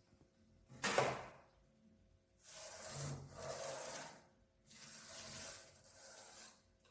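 Fingertips tracing a Montessori sandpaper letter, a dry rubbing on the sandpaper in two strokes of about two seconds each. A short puff of breath comes about a second in.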